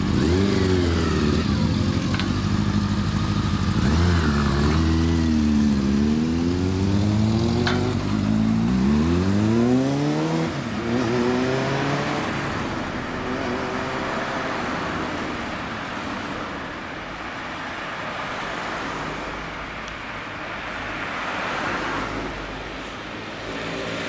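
A 400cc inline-four motorcycle with a WR'S aftermarket exhaust is revved several times at standstill, the pitch rising and falling with each blip. About ten seconds in, the bikes pull away and their engines fade into passing street traffic.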